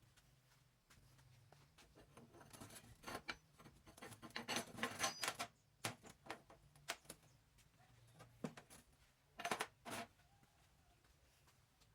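Light clicks and small metal clatter from hand work on workshop parts: a busy flurry a few seconds in, a few single ticks, then two sharper knocks close together near the end.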